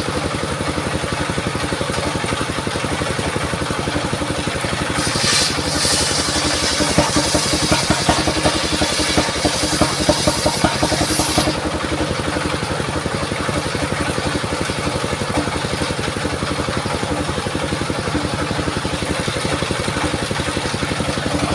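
Engine-driven portable circular sawmill running steadily. For about six seconds in the middle the blade cuts through a mahogany log, adding a harsh, higher-pitched noise with irregular loud knocks and rattles. The noise stops suddenly and the machine runs on without load.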